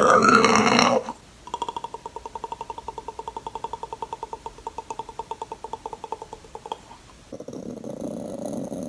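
A human mouth imitation of the Predator creature. A growl ends about a second in. Then comes a rapid run of pitched clicks, about ten a second, for some five seconds. A low, breathy growl starts near the end.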